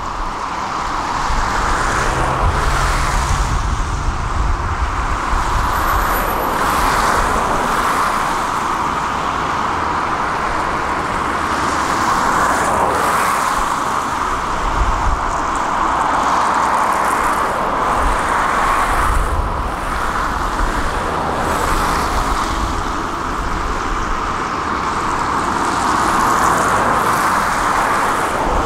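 Diesel engines of heavy construction machinery running steadily, a continuous rushing hum over a low rumble that swells and eases slightly now and then.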